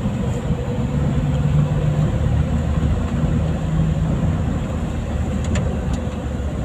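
Car engine and road noise heard from inside the cabin while driving: a steady low hum.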